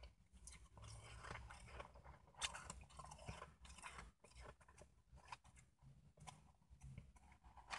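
Faint crunching and chewing of shaved ice, with a spoon scraping and scooping ice in a bowl: irregular small crackles and clicks, the sharpest about two and a half seconds in.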